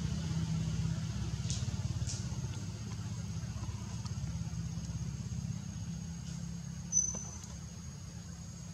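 A low, steady engine-like rumble, as of a motor vehicle running, with a thin high steady whine above it. A few brief high chirps come about one and a half and two seconds in, and a sharper one about seven seconds in.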